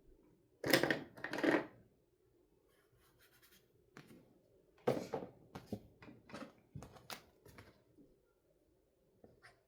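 Hands handling wooden toy pizza pieces. Two scraping, rustling rubs come about a second in, and a run of light wooden clacks and taps follows in the second half.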